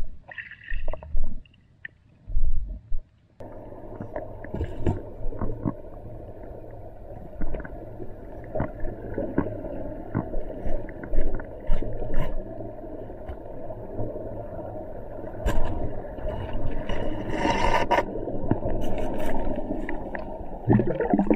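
Muffled sound from a camera underwater: a steady low rush of water with many scattered knocks and scrapes as the diver moves along the canal bottom, starting after a few separate thuds in the first seconds.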